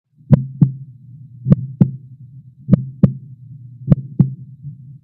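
Heartbeat sound effect: a slow lub-dub double beat repeating about every 1.2 seconds, four times with a fifth starting near the end, over a low steady hum.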